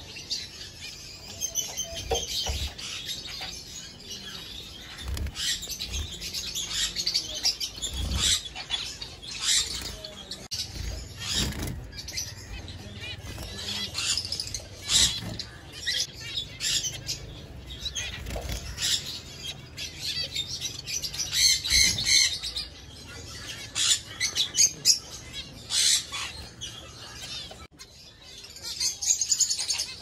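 Caged finches chirping with many short, high notes, with bursts of wing flutter as they flit between perches.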